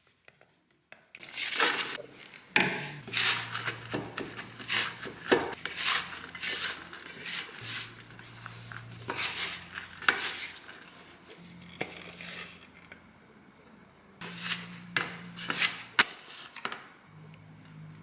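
Kitchen utensils scraping and clinking on cookware in irregular strokes during scone-making prep, starting about a second in.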